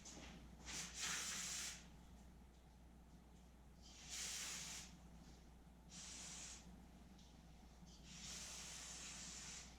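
Four short bursts of hissing spray, the last one the longest, as the part is sprayed clean.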